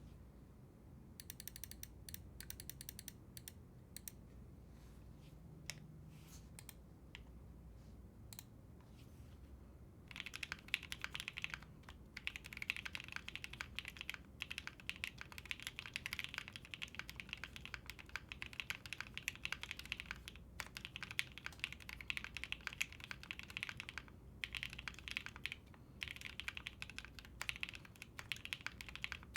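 Custom AI03 Vega mechanical keyboard with lubed Black Cherry Pie linear switches, a full POM plate and PBT keycaps being typed on. A quick run of keystrokes comes near the start, then a few single key presses, then steady fast typing from about ten seconds in, with a couple of brief pauses.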